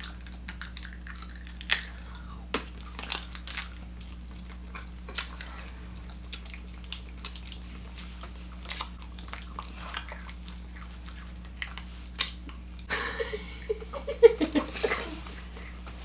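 Chewing and crunching on fizzy hard candies, with scattered sharp crunches. Laughter breaks in near the end.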